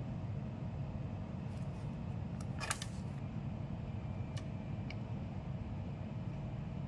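Steady low background hum with a few faint clicks and taps of tools being handled on a workbench, the sharpest about two and a half seconds in, as the multimeter probes are put down and a soldering iron is taken up.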